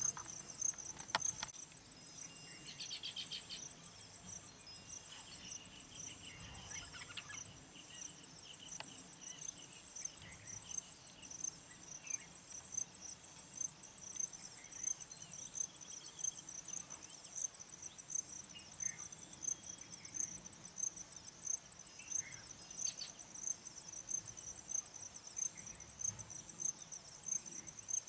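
A cricket-like insect chirping steadily in high-pitched pulses, about one and a half a second, with a few fainter bird chatters in the first several seconds.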